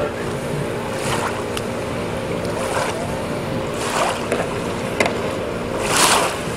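Water splashing and sloshing as a kayaker capsizes and rolls a sea kayak back up. There are several splashes, the loudest about six seconds in, over a steady background hum.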